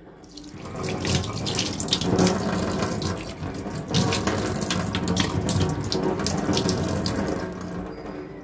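Kitchen tap running into a stainless-steel sink. The flow is opened up about half a second in and turned back down near the end.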